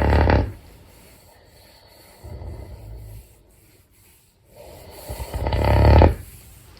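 A pet in deep sleep snoring loudly with deep, breathy snores. A loud snore fades just after the start, a quieter one comes a couple of seconds in, and another loud one lasts about a second and a half near the end.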